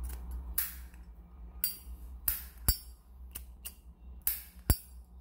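A vintage 1958 Zippo lighter being handled: a series of sharp, irregularly spaced metallic clicks and clinks from its hinged brass lid and case, the loudest about two and a half seconds in and again near the end.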